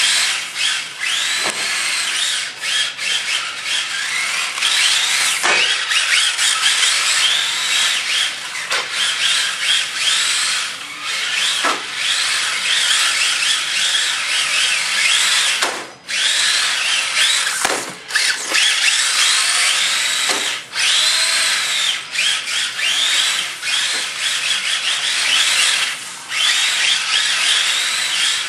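Two Tamiya TT-01E radio-controlled cars with 20-turn brushed electric motors drifting on a concrete floor. Their motors and gears whine, rising and falling in pitch as the throttle is worked, over the hiss of tyres sliding, with occasional short knocks.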